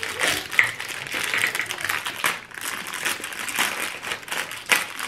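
Crinkly plastic wrapper on a sleeve of Ritz crackers being torn open and crumpled by hand, in irregular crackles.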